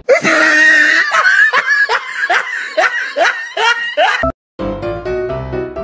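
A run of snickering laughter, a quick repeated 'heh-heh' at about two or three pulses a second, stops abruptly about four seconds in. After a brief gap, light piano music starts.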